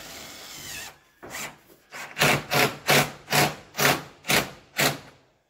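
Cordless drill driving a self-drilling roofing screw through corrugated metal roofing. It runs steadily for about a second, then goes in a series of short bursts about two a second as the screw goes through and seats.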